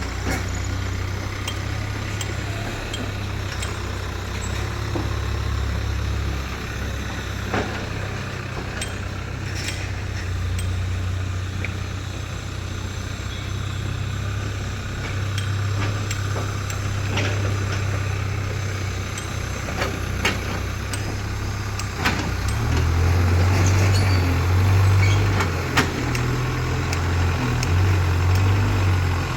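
Heavy diesel engine of a JCB 3DX backhoe loader running steadily while digging and loading mud. It works harder and grows louder over the last several seconds. A few sharp knocks are scattered through it.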